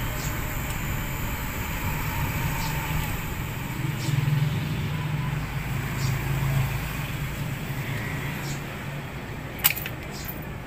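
A tricycle's motorcycle engine idling steadily while the double-headed 12-volt fans run. There is a single sharp click near the end.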